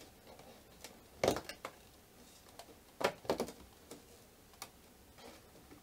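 Cardboard door of an advent calendar being pressed and pried open by hand: a few short cardboard knocks and crackles, the loudest about a second in and around three seconds in.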